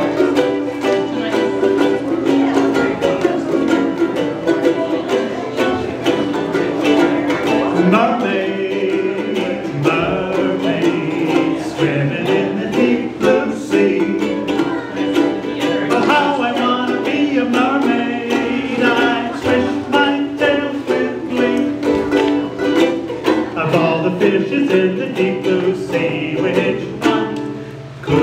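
Three ukuleles strummed together in a lively, rhythmic song, with voices singing along from about eight seconds in.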